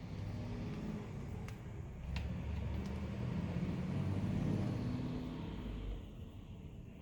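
Low background rumble that swells a couple of seconds in and fades near the end, with a few faint clicks.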